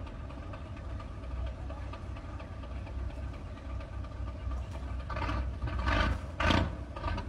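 Nissan V10 diesel engine of a fishing boat running steadily through its tall open exhaust stack, a low rumble. In the last two seconds it rises in a few louder surges.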